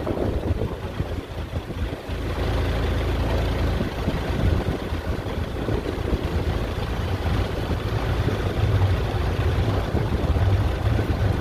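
Low, steady rumble of the Costa Smeralda cruise ship's machinery as the ship maneuvers close alongside the quay.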